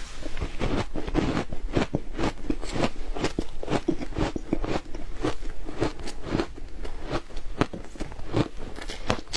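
Close-miked crunching and chewing of a mouthful of shaved ice: a rapid, irregular run of crisp crunches, several a second.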